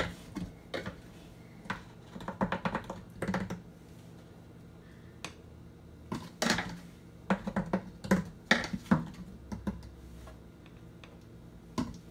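Clusters of light taps and clicks as flour is tipped into a stainless-steel wire-mesh sieve: container and utensil knocking against the sieve's metal rim. Two main bursts of tapping, one in the first few seconds and another from about six to nine seconds in.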